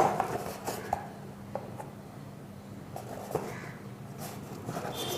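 Cardboard box being handled and turned over: scattered light knocks and rustles, the loudest right at the start, over a faint steady hum.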